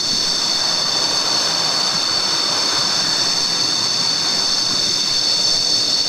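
Steady high-pitched drone of tropical jungle insects, several shrill tones held without a break, over an even background hiss.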